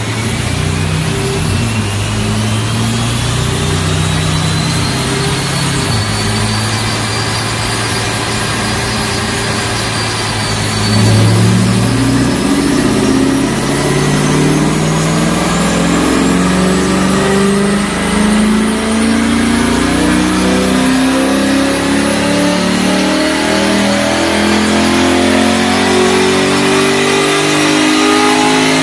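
Cammed LS3 V8 of a 2012 Corvette Grand Sport (Kooks headers, catless X-pipe, Borla exhaust) running on a chassis dyno: a steady low engine note, then about 11 seconds in it gets louder and climbs steadily in pitch as the revs rise under load. A high whine rises over the first ten seconds.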